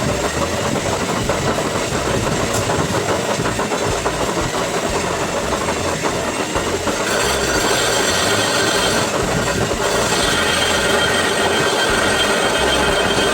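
A lathe turning a Renault Kwid brake disc: a steady mechanical clatter of the machine running. About halfway through, the cutting tool adds a higher ringing tone as it skims the disc face.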